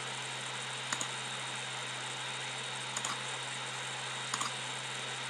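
Steady hiss with a low hum underneath, broken by a few soft clicks: one about a second in, one around three seconds, and a quick pair just past four seconds.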